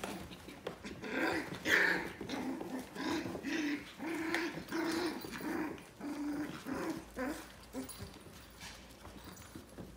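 Five-week-old puppies play-growling and yapping as they wrestle: a string of short, pitched growls and yaps that thins out over the last couple of seconds.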